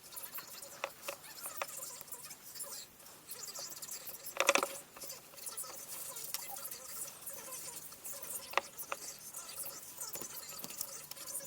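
Small scratching and clicking handling noises from work on the charger's parts, with a sharper click about four and a half seconds in and another later.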